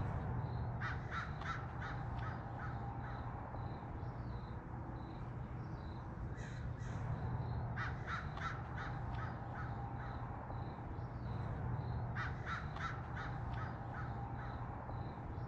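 Crows cawing in three bouts of quick harsh caws, over a steady low hum, while a small bird repeats a faint high note throughout.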